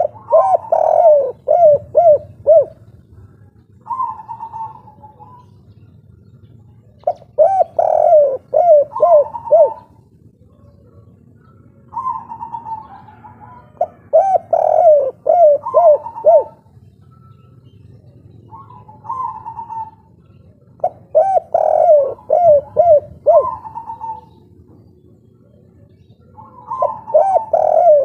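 Spotted dove (derkuku / tekukur) of the local 'kuk 3' song type cooing over and over. Each phrase is an opening coo followed by a quick run of short falling notes, and the phrases come about every seven seconds, with shorter coos between them.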